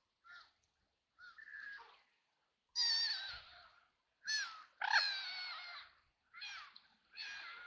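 Ducks quacking in a run of short, raspy calls, the loudest a few seconds in.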